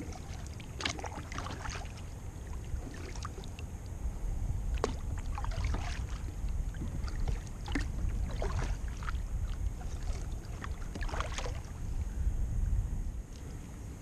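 Werner Comano double-bladed kayak paddle stroking the water, each blade dipping in with a splash and drips roughly once a second, over a steady low rumble. The strokes stop shortly before the end.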